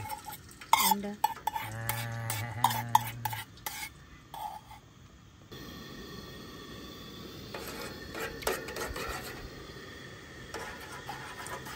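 Metal cooking utensils clinking and scraping against a pan, with a brief low hum, then a steady sizzle of food frying from about halfway through.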